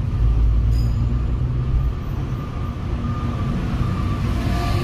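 Car on the move in traffic: a steady low rumble of engine and road noise, a little louder in the first second or so.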